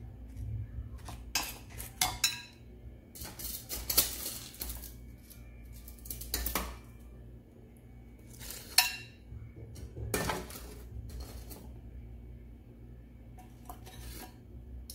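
Dishes and kitchen utensils clinking and knocking in an irregular series of short clicks, with a few louder knocks.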